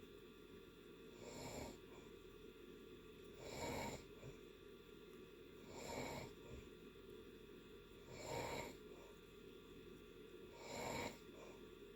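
A person snoring in deep sleep: five snores, one about every two and a half seconds.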